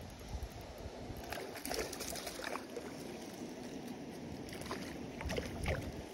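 Water splashing in two short spells of crackly strokes over a steady low wind rumble on the microphone.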